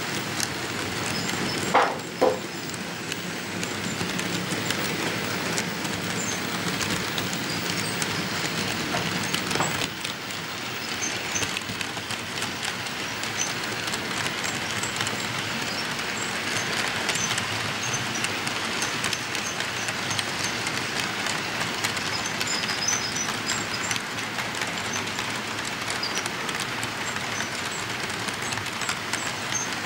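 HO scale model freight train rolling past close by: a steady clatter of small wheels ticking over the track joints as the locomotives and then a string of freight cars go by, with two sharp louder clacks about two seconds in.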